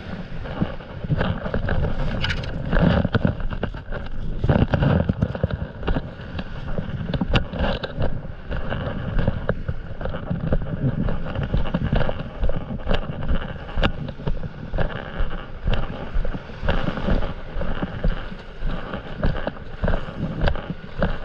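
Wind buffeting the microphone, with many short clicks and knocks from a stand-up paddleboard and its paddle as the board is launched off the sand into shallow water.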